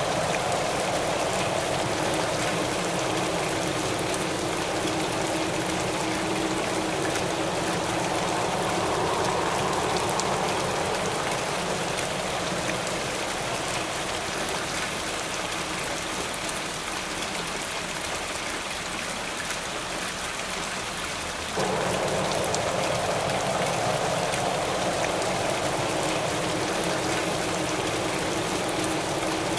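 Heavy rain falling steadily, a dense patter of drops, with wind swelling and easing beneath it. The sound gets suddenly louder about two-thirds of the way through.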